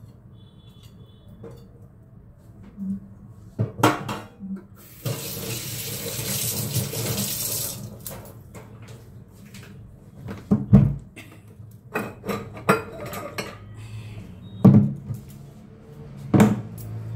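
Kitchen sink tap running for about three seconds, with sharp clinks and knocks of dishes and a glass bowl being handled at the sink before and after it.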